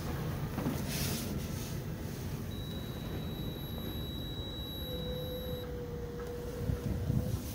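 Low steady rumble of the Scania R truck's idling diesel engine heard inside the cab, with a thin, high electronic beep tone held for about three seconds in the middle and a lower steady tone overlapping it near the end.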